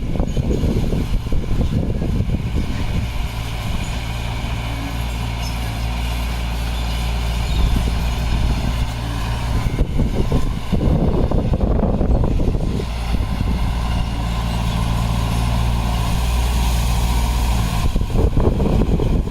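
Heavy diesel engine of earthmoving equipment running steadily, with louder, rougher stretches about halfway through and again near the end.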